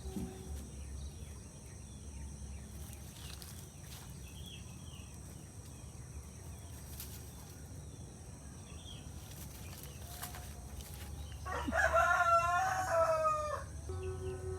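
A rooster crowing once, a loud call of about two seconds near the end, over faint scattered bird chirps.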